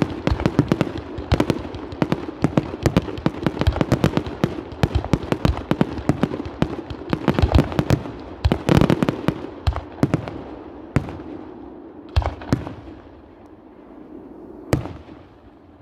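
Fireworks barrage: aerial shells bursting in a rapid run of sharp bangs and crackle, thinning out about ten seconds in to a few single bangs.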